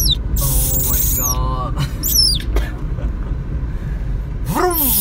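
Baby monkey giving thin, very high squeaks that slide down in pitch, several times, with lower wavering calls between them. A low steady rumble from the car runs underneath.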